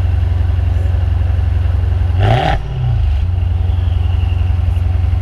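Maserati Ghibli Trofeo's 3.8-litre twin-turbo V8 heard at the exhaust outlet, idling steadily. It gives one quick rev blip about two seconds in and settles straight back to idle.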